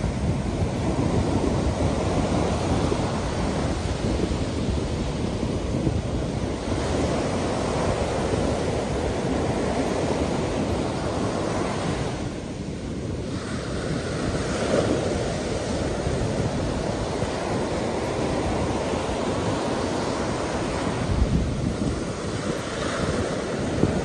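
Gulf of Mexico surf breaking close in and washing up a sandy beach in a steady wash of noise, with wind buffeting the microphone.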